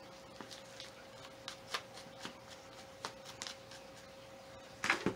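Potting mix with perlite being scooped from a plastic tub and poured into a plastic nursery pot: scattered light rustling and scraping, with a louder cluster of crackles near the end.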